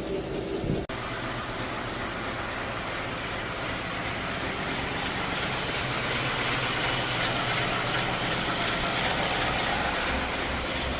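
2016 Ford F-150's 5.0-litre V8 running with a very loud, rapid tapping that sounds almost like a diesel knock, like a typewriter. The cause is loose primary timing chains, confirmed when new chains, tensioners, guides and phasers cured it.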